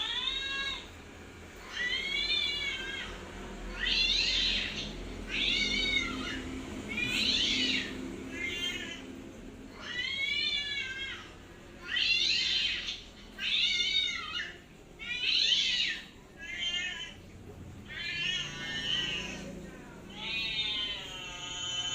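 A cat meowing over and over, about a dozen high, rising-and-falling meows a second or two apart, the last one drawn out near the end.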